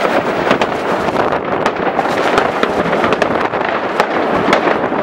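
Many fireworks going off at once: a dense, continuous crackle with sharp bangs several times a second over a steady wash of overlapping blasts.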